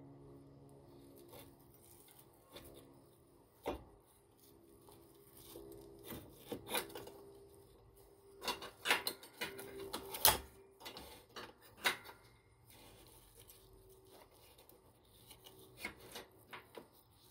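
Scattered small metal clicks, taps and rubbing as a washer and parts are worked by hand onto a mower's pivot-arm shaft, with the sharpest knocks about nine and ten seconds in.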